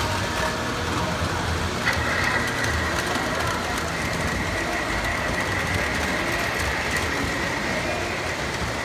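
Electric model trains running around a layout's track: a steady rumble of wheels and motors, with a steady high whine that comes in about two seconds in.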